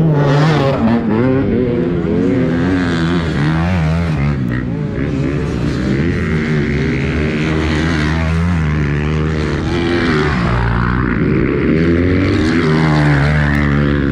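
Motocross bikes racing past one after another, their engines revving up and down in pitch as the riders accelerate and shift.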